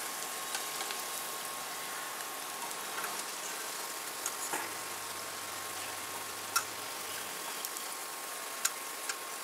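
Cornflour-battered vegetable fritters deep-frying in hot oil in a steel kadhai: a steady sizzle with small crackles. A few sharp clicks of the slotted spoon against the pan come as fried pieces are lifted out.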